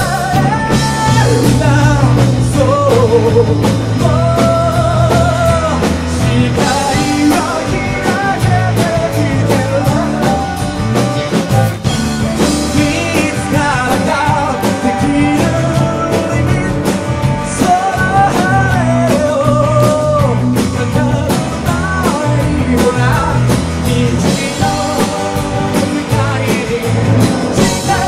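Live rock band playing: a man sings the lead in Japanese, with vibrato, over strummed acoustic guitar, electric bass, drums and electric guitar.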